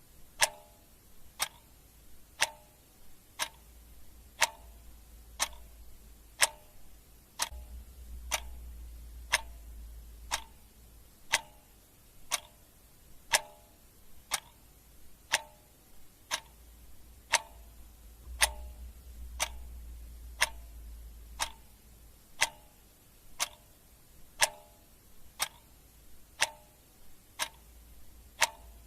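Clock ticking steadily about once a second, the ticks alternating louder and softer in a tick-tock. A faint low hum swells and fades twice underneath.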